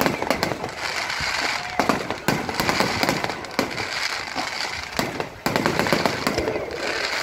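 Aerial fireworks shells bursting in quick succession, sharp bangs over a steady crackle of glittering stars. The barrage gets suddenly louder and denser about five and a half seconds in.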